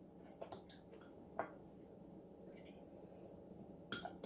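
A few light clicks and taps of tableware and shells being handled at a meal, over quiet room tone; the sharpest comes near the end.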